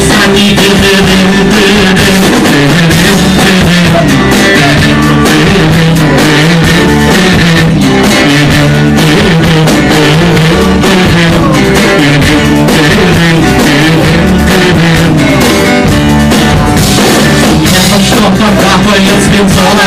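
Live rock band playing loud with electric guitar and drum kit.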